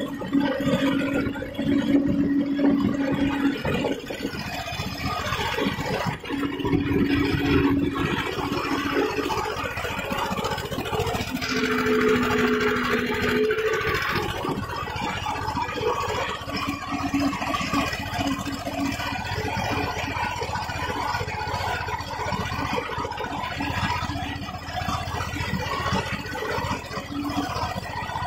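Tractor diesel engine running steadily under load while pulling a cultivator through dry soil. A strong steady hum comes and goes over the engine noise.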